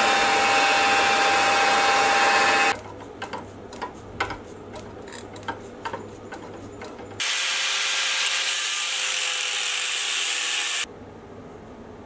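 Sieg X2.7L bench mill drilling into steel, running loud and steady with a whine, stopping under 3 s in. Then a run of scattered clicks as a tap is turned by hand in the drilled hole, followed by a loud hiss of about three and a half seconds that cuts off abruptly.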